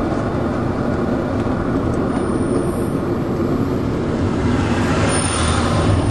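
Steady road noise from inside a moving car: a dense rumble of tyres and engine that swells slightly near the end.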